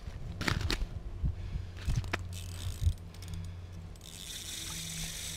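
Ice-fishing reel mechanism clicking and ratcheting as the line is worked, with several sharp clicks in the first three seconds. A steady hiss starts about four seconds in.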